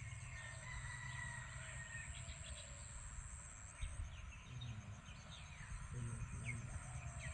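Rural outdoor ambience: scattered short bird chirps and a steady high insect drone over a low rumble of wind on the microphone.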